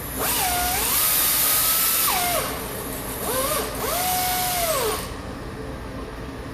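Cordless power driver running bolts down, in two runs of about two seconds each; each time the motor pitch rises, holds steady, then falls away as it stops.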